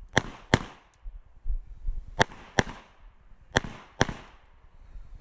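Glock 47 9mm pistol fired in three quick pairs of shots, about 0.4 s between the two shots of each pair and a second or more between pairs: double-taps on successive targets during a timed stage.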